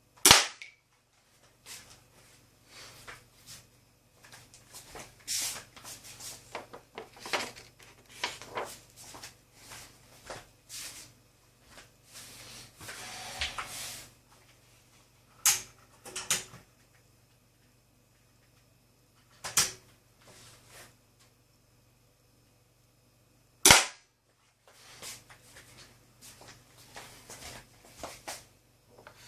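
Condor 2500 toy pistol firing, each shot a sharp snap. The loudest shots come just after the start and about twenty-four seconds in, with weaker snaps, clicks and rustling of the gun being handled in between.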